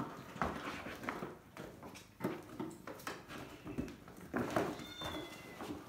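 Kittens scampering and pouncing on a wooden floor and in and around a cardboard box: irregular light thumps, taps and scratches of paws on the floor and cardboard.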